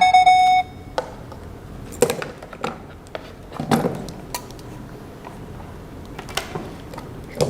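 The last note of a short music cue ends just after the start. Then come scattered light clicks and knocks of small objects being handled in a small room, with a brief rustle about two seconds in and another near four seconds in.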